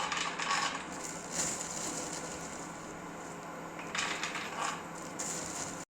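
Peanuts rattling and scraping in a frying pan of hot ghee as they are roasted, in short bursts over a steady hiss. The sound cuts off just before the end.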